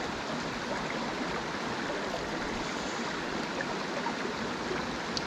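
Steady rush of a river's current running through pocket water.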